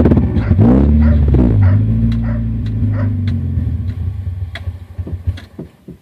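2000 Honda CR-V's B20Z 2.0-litre four-cylinder engine falling in pitch from about 2,000 rpm, then running low and unevenly with scattered misfire pops. It fades out and stalls near the end.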